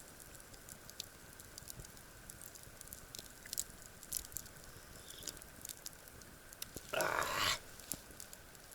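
Campfire crackling with scattered small snaps and pops, and one short, louder noisy rush about seven seconds in.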